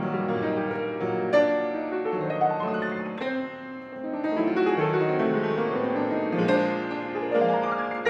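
Erard grand piano played solo, with fast runs and full chords. It eases off a little about halfway through, then builds again.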